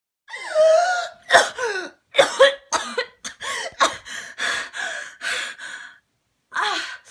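A young woman coughing hard and gasping for air. It opens with a strained voiced gasp just after the start, then a rapid run of a dozen or so coughs and gasps, and one more cough near the end.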